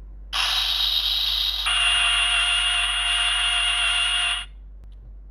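Electronic sound effect from a Bandai Ultraman Trigger GUTS Sparklence transformation toy's speaker. It is a noisy rushing effect with a steady tone through it that shifts to a brighter, steadier tone about a second in, then cuts off sharply after about four seconds.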